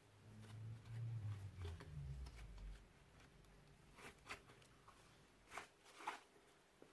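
Thick white slime being squeezed and kneaded by hand: a low rumble of handling in the first couple of seconds, then a few short sticky pops and crackles in the second half.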